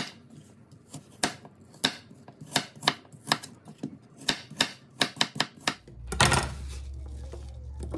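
Kitchen knife dicing peeled apples on a flexible plastic cutting board: a run of sharp knife strokes, a few a second. About six seconds in comes one louder, longer scrape of the blade across the board.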